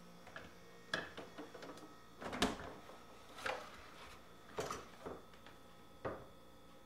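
Irregular knocks and light clunks, about six in the space of a few seconds, the loudest about two and a half seconds in: a cardboard pizza box being pulled from a refrigerator, carried and handled.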